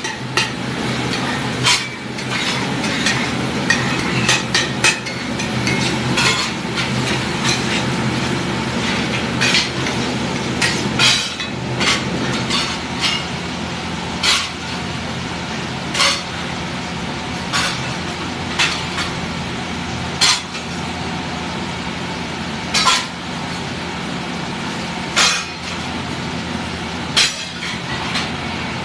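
Metal spatulas clinking and scraping against a large flat pav bhaji tawa as the bhaji of peas and tomato is stirred, sharp knocks at irregular intervals, quick at first and then about every two seconds. Under them runs a steady background rumble and hum.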